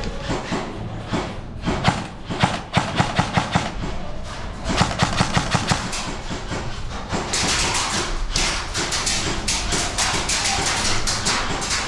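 Airsoft guns firing in rapid bursts of sharp clicks, twice in the first half, followed by a noisier clatter of continued fire and movement.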